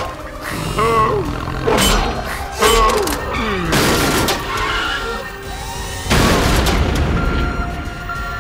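Cartoon action soundtrack: dramatic music with several heavy booming crashes from a machine fighting a robot dog.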